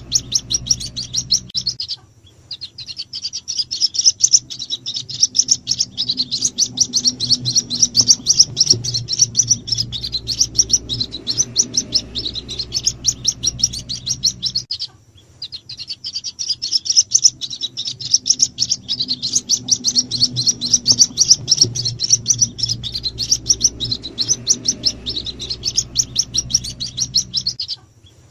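White-breasted waterhen chicks peeping in rapid, high-pitched strings: a lure call used to draw the parent birds. The calling breaks off briefly about two seconds in, again around fifteen seconds in, and just before the end.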